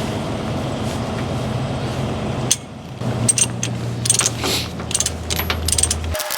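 Steel tie-down chain links and hooks clinking and jingling as they are handled, over a steady low hum. The clinks come thicker after a brief lull about two and a half seconds in.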